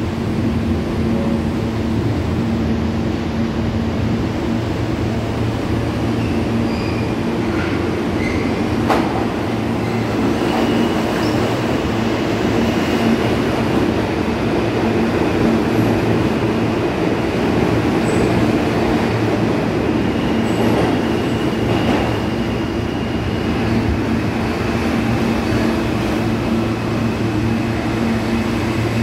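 R160A subway train pulling into an underground station and running alongside the platform, a loud steady rumble of wheels on rail with a low hum. A thin high tone rides over it from about ten seconds in until near the end.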